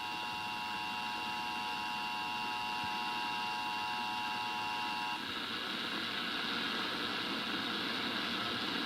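Emergency Alert System two-tone attention signal held steady under heavy static hiss, part of a Required Monthly Test relay. The tone cuts off suddenly about five seconds in, leaving only the hiss.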